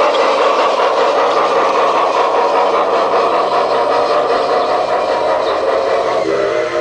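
Large-scale toy steam locomotive running around its track, giving a steady, rapid chugging noise. A pitched whistle tone comes in near the end.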